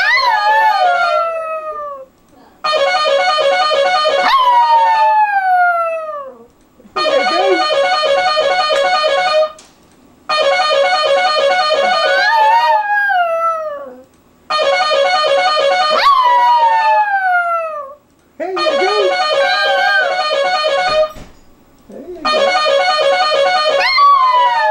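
A dog howling along to a short electronic tune that plays over and over, about seven times, each run lasting a few seconds with a short pause between. Each howl slides down in pitch as the tune plays.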